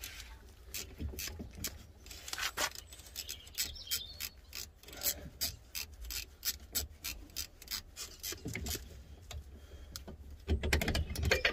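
A hand ratchet on a 10mm socket clicking in quick, uneven runs, several clicks a second, as it backs out front brake caliper bolts. A louder, lower burst of sound comes near the end.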